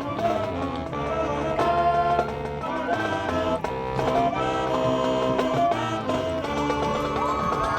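Marching band playing sustained chords, brass and wind instruments holding notes that change about every second.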